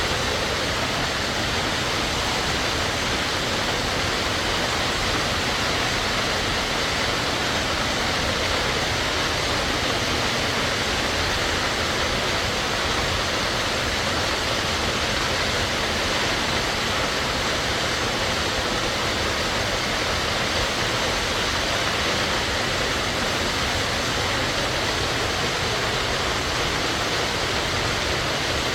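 Waterfall falling steadily, an even rushing of water.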